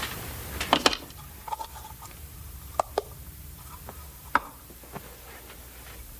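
A handful of sharp knocks and clicks in a small room: two close together about a second in, then single ones near three seconds, four and a half and five, over a low steady hum.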